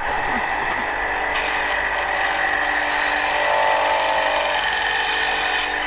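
EzyLif VBS8 350 W 8-inch band saw cutting a curve into a wooden board: a steady saw noise over the running motor's hum. The cutting noise drops away near the end.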